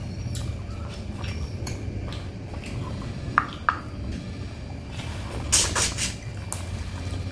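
Eating crab by hand: small clicks and crackles as fingers pick at the shell, two sharp ticks a little after three seconds in, then a short cluster of wet sucking and smacking about five and a half seconds in as she sucks her fingers. A steady low hum runs underneath.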